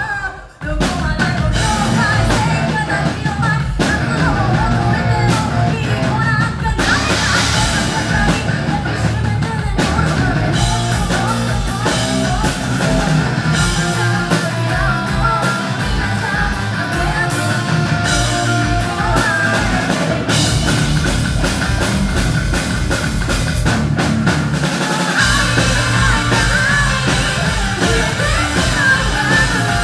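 Japanese all-female hard rock band playing live: a woman sings over drums, distorted electric guitars and bass. The music breaks off briefly just after the start, then the full band comes back in.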